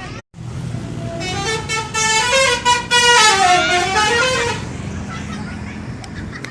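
Indonesian bus 'telolet' horn, a multi-tone musical air horn, playing a short melody of stepped notes that climbs and falls for about three seconds, starting about a second in. Under it the bus engine runs with a steady low rumble.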